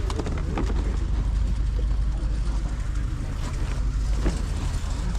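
Outdoor background noise: a steady low rumble with faint, indistinct voices and a few sharp clicks.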